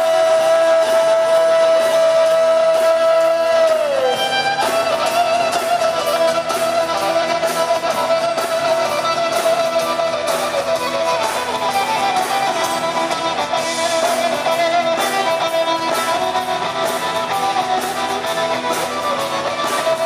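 Live rock band playing an instrumental break on electric guitars and drums: one long held note slides down about four seconds in, then a melodic guitar line runs on over strummed chords and drums.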